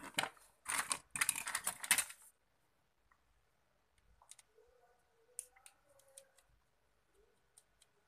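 Small screwdriver clicking and scraping on the screws and plastic back housing of a Nokia 220 mobile phone as the screws are undone. A dense run of rapid clicks for about two seconds, then only scattered faint ticks.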